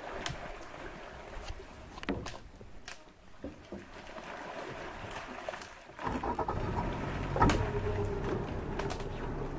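Boat motor running, with wind on the microphone; the motor grows louder and steadier about six seconds in. Scattered sharp knocks, and one louder thump about seven seconds in.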